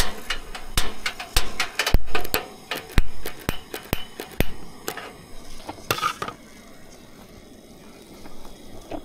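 Cookware and utensils clattering as a meal is set up: a quick run of metal knocks and clinks for the first four or five seconds, then fewer and quieter ones.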